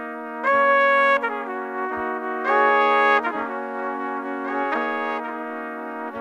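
Slow instrumental music: held chords over a steady low note, with two louder swells about half a second and two and a half seconds in.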